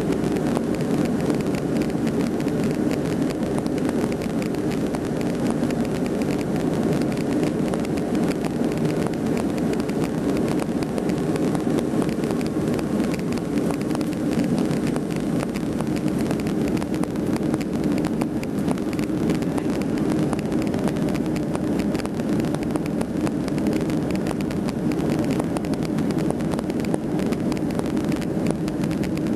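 Airliner's jet engines at takeoff power, heard from inside the cabin as a loud, steady, low-pitched noise through liftoff and the initial climb.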